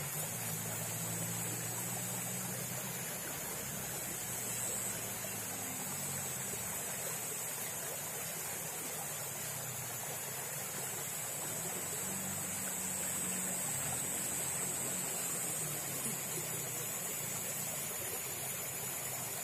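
Steady ambience of a small muddy stream: an even hiss of running water, with a steady high whine and a low hum that wavers in pitch.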